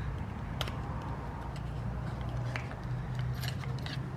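A few light clicks and small metallic handling sounds, spaced out over a few seconds, as small metal parts and tools are handled. A steady low hum runs underneath.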